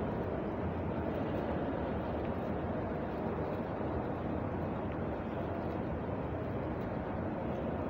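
Steady, even low rumble of background noise, with no distinct events standing out.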